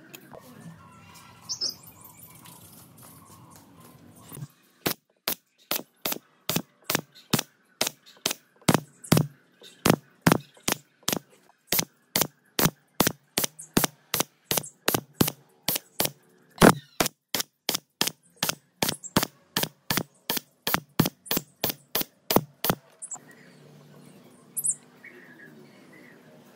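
Nail gun firing into a wooden panel over and over, about three sharp shots a second, starting about four seconds in and stopping near the end.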